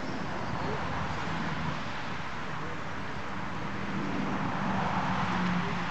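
Steam locomotive Axe and its narrow-gauge train receding into the distance: a steady, even rumble with no distinct beats, growing slightly louder near the end.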